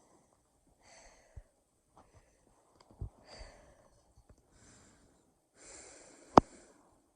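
A person breathing heavily in about four separate breaths, with small clicks between them. A sharp pop about six seconds in is the loudest sound.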